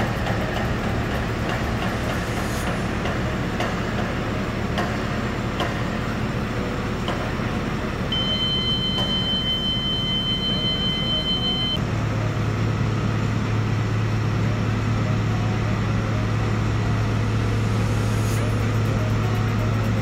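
Telehandler's diesel engine running steadily with a low hum that grows louder about halfway through. A steady high-pitched beep sounds for about three and a half seconds in the middle.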